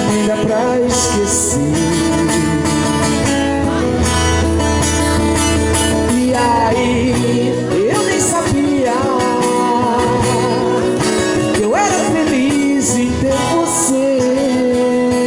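Live MPB song for voice and acoustic guitar: a man sings with sliding phrases over steady guitar accompaniment, picked up by a camera's built-in microphone.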